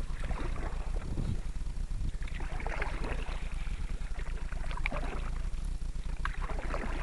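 Canoe paddle strokes in water, irregular swishes and drips every second or two, over a steady low rumble.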